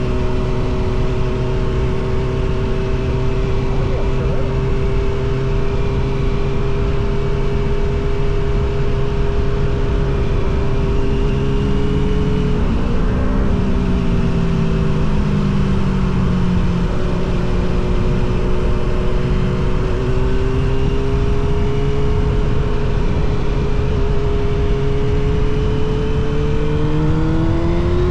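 Suzuki GSX-R750 SRAD's inline-four running through a Yoshimura R77 exhaust while riding. The engine note holds steady, drops in pitch a little before halfway as the bike slows, then rises again near the end as it picks up speed.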